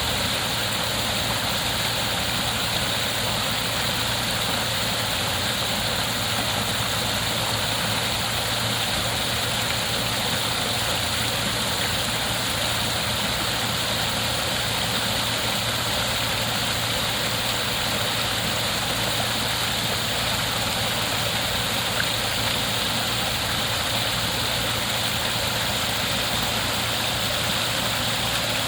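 Waterfall: a steady, unvarying rush of falling water, strongest in its hiss, with a steady low hum underneath.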